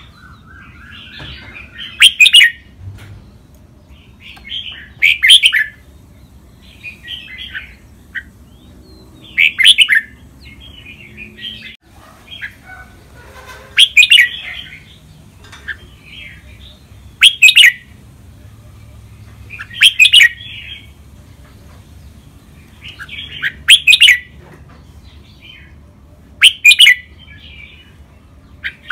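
Red-whiskered bulbul singing: short, loud phrases about every three seconds, with softer chattering notes between them.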